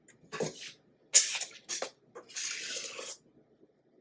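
A metal icing spatula scraping and scooping thick frosting out of a stainless steel mixing bowl: a few short scrapes, a sharp clink against the bowl about a second in, then a longer scrape near three seconds.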